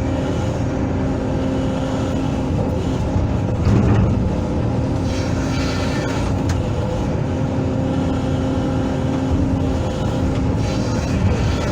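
Hydraulic excavator's diesel engine running steadily while it works, with a brief louder thump about three and a half seconds in.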